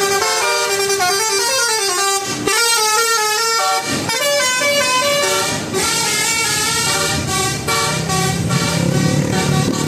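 Bus telolet horn, a set of electrically switched air-horn trumpets, playing a quick tune of changing notes. A low steady hum joins near the end.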